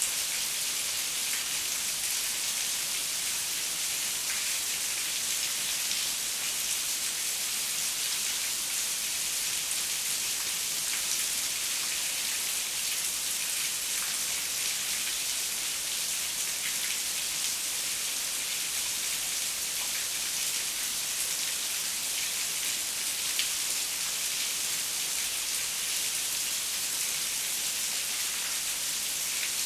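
Heavy rain falling steadily: an even hiss, with scattered drop ticks.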